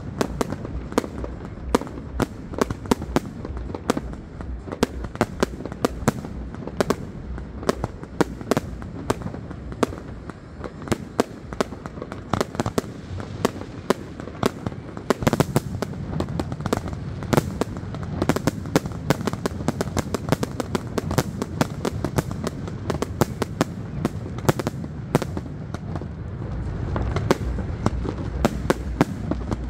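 Aerial fireworks display: a dense, irregular string of sharp bangs from shells launching and bursting, several a second, over a low rumble, getting a little louder near the end.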